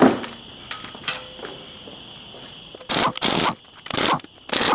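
A sharp knock, then a pneumatic impact wrench running in three short bursts in the last two seconds, spinning out bolts on a 2.3L EcoBoost cylinder head.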